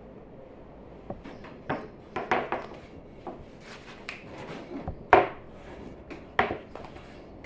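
Wooden knocks and rubbing from a long thin wooden rolling pin on a round wooden board as a sheet of baklava dough is rolled out. The knocks come irregularly after the first second, and the loudest comes about five seconds in.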